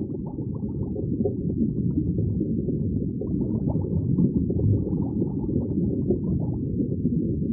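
Muffled underwater ambience: a low, steady rumble with faint bubbling over it, growing louder over about the first second and then holding.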